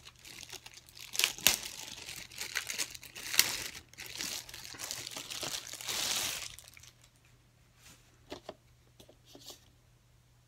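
Thin clear plastic bag crinkling and rustling as it is pulled open and a box is drawn out of it, with two sharp crackles in the middle; it stops after about six and a half seconds, followed by a few light knocks.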